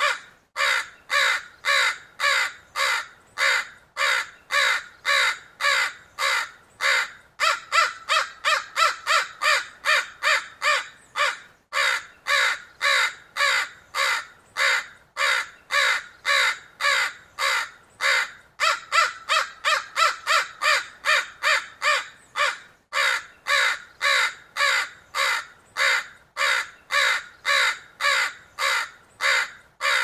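Crow cawing: harsh caws repeated in a rapid, unbroken series of about two or three a second, with brief pauses about twelve seconds in and again near twenty-three seconds.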